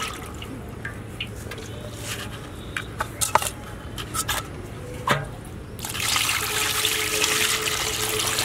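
Water handling: a few scattered clicks and knocks, then, about six seconds in, water starts to pour or run with a steady rushing splash.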